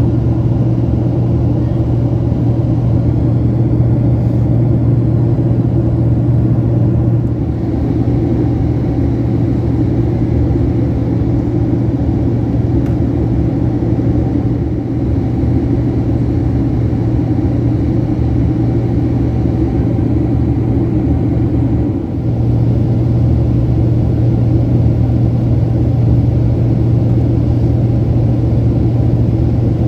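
Steady cabin noise of a Boeing 767-300 airliner: engine and airflow rumble with a constant low hum, dipping slightly twice.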